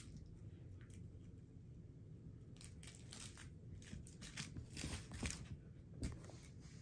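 Faint, scattered clicks and rustles of something being handled, thickest in the middle, with a soft knock about six seconds in.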